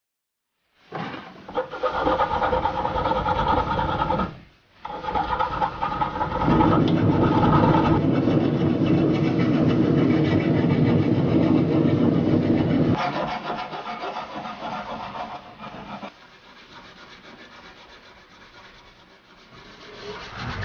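A hand file rasping across a steel axe bevel in repeated strokes, starting about a second in and loudest through the middle. Near the end a bench grinder's wire wheel starts to run.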